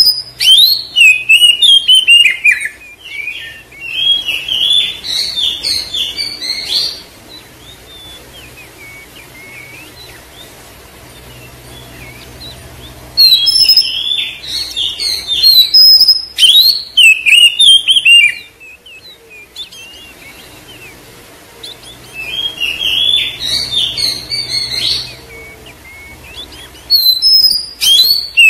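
Oriental magpie-robin (kacer) singing: bouts of rapid, varied whistles and chirps a few seconds long, with pauses of several seconds between them, the longest pause near the middle.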